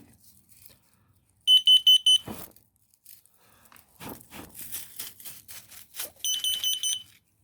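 Combination smoke and carbon monoxide detector's alarm sounding in rapid runs of shrill high beeps, set off by smoke during a test: four quick beeps, then a few seconds later a run of about six. In between there are short clicks and rustles.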